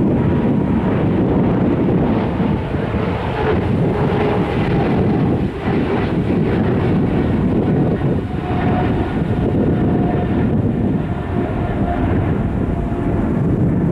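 Boeing 777 twin-engine jet airliner climbing out at takeoff thrust: a loud, steady, rough engine roar with a faint whine that slowly drops in pitch as the aircraft moves away.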